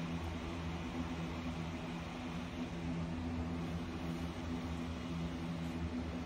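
A steady mechanical hum with several constant low tones over an even hiss, running without change, like a motor or fan.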